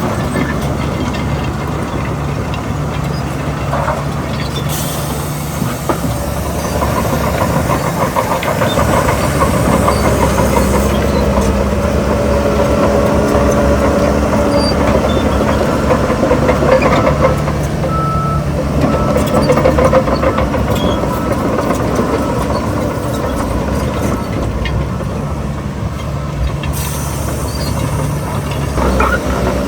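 Heavy earthmoving machinery at work: a large diesel engine running steadily under load for the whole stretch, a little louder in the middle.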